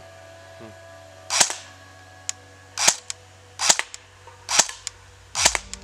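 Electric airsoft M4A1 rifle fired five single shots on semi-automatic, each a short sharp snap, spaced roughly a second apart.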